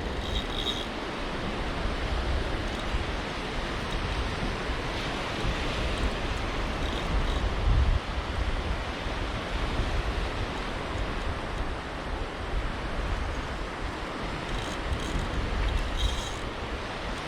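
Surf washing onto the beach, a steady rushing noise, with wind buffeting the microphone as a low rumble.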